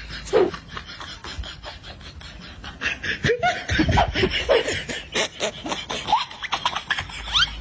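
Off-camera laughter in quick repeated bursts, getting louder and more frequent about three seconds in.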